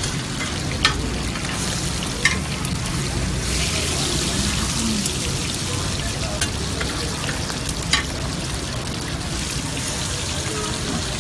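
Chicken-and-egg chapli kebabs frying in shallow oil on a large flat steel tawa, giving a steady sizzle. A few sharp clicks are heard over it.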